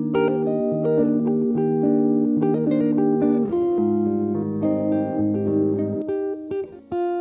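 Background music led by plucked guitar notes and chords over a bass line, with a short break near the end before a held chord.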